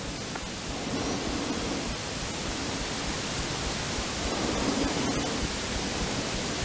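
Steady hiss of static noise, even across the range from low to high, with a faint hum that fades in and out.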